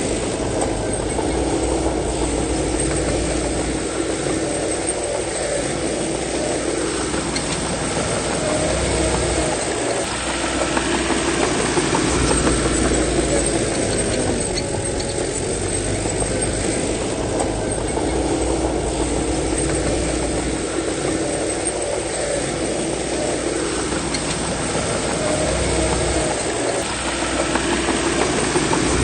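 Heavy diesel engine of a bulldozer running continuously while working. Its pitch and load rise and fall in repeated cycles about every six seconds as it pushes soil.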